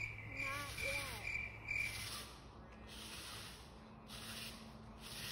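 Insects chirping: a high, pulsed trill that stops about two seconds in, followed by a softer high hiss that comes and goes about once a second.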